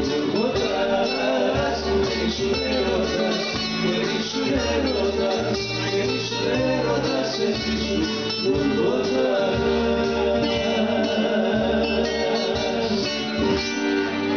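Live amplified band: electric-acoustic guitars and keyboard with a steady bass line, and a man singing into a microphone.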